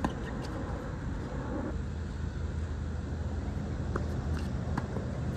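A tennis ball struck hard by a racket right at the start, then a few fainter sharp knocks of ball hits or bounces about four seconds in, over a steady low rumble.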